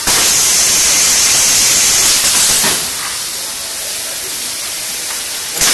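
Compressed air or gas hissing loudly from the pneumatic sealing and propellant-filling head of a semi-automatic bag-on-valve aerosol filling machine. The hiss starts abruptly, lasts about two and a half seconds and then drops back to a fainter steady hiss. A short sharp blast of air comes near the end.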